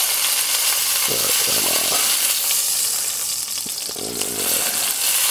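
A piece of swordfish sizzling in hot oil in a stainless steel skillet as its edge is seared, held upright with tongs. A steady frying hiss that eases slightly about three and a half seconds in.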